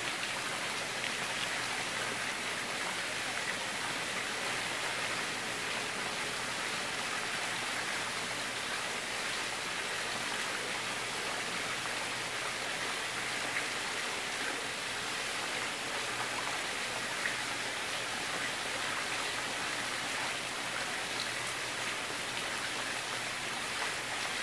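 Steady hiss like running water, even throughout, with a couple of faint clicks.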